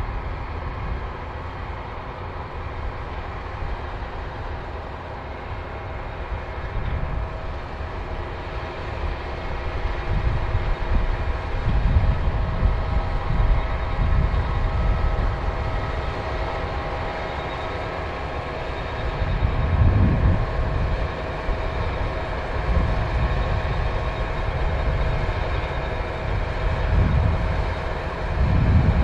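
New Holland combine harvester running steadily, its engine and threshing machinery giving a constant hum of several steady tones. A low rumble swells up a few times, around the middle and near the end.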